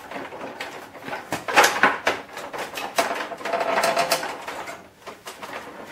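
Printer casing and internal parts being worked loose by hand: an irregular run of plastic and metal clicks, knocks and rattles, with a short creak about three seconds in.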